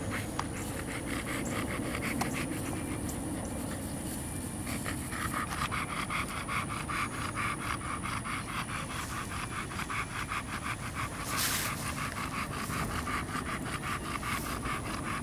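American Bully dog panting rapidly, about five breaths a second, getting heavier about five seconds in.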